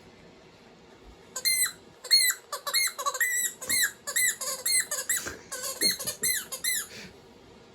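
Squeaky rubber toy ball being squeaked rapidly by a dog biting down on it. About a dozen short, high squeaks come in quick succession, starting about a second and a half in and stopping near the end.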